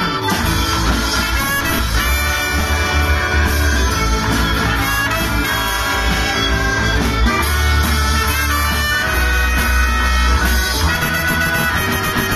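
Live band playing an instrumental boogie-blues passage led by brass: trumpet, trombone and saxophone over guitars, bass and drums, with no singing.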